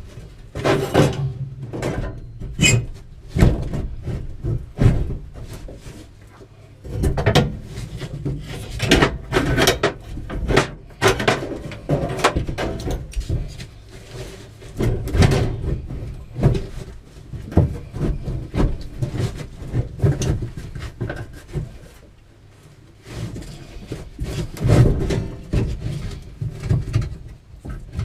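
Irregular knocks, bumps and scraping as an RV water heater is worked loose and shifted inside its cramped compartment.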